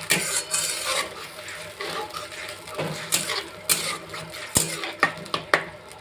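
A spatula stirring masala paste in a frying pan: scraping and a run of sharp metal knocks against the pan, over a light sizzle.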